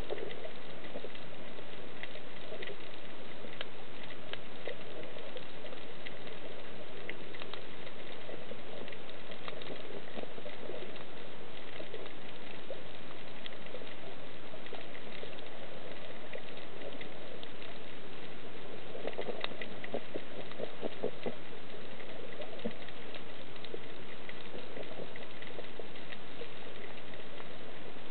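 Underwater ambience over a rocky reef: a steady crackle of many fine clicks, with patches of low pulsing sounds, the strongest a little past two-thirds of the way through.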